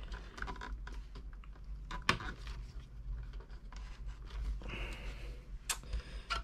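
Handling noise from flat modular power-supply cables being worked in around a small PC case: scattered light clicks and rustles, with a sharper click about two seconds in and another near the end.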